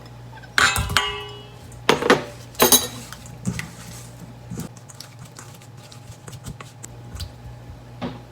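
A bowl clinking as pieces of scabbard fish are put into the marinade: three sharp knocks in the first three seconds, the first ringing briefly, then lighter taps and handling sounds.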